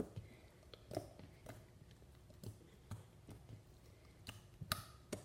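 Clicky slime being worked by hand, giving faint, scattered wet clicks and pops every half second to a second.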